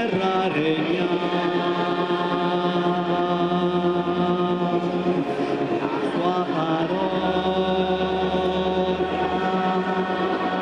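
A slow hymn sung in long held notes, the pitch changing about five seconds in. A low held bass note sounds under it from about seven to nine and a half seconds.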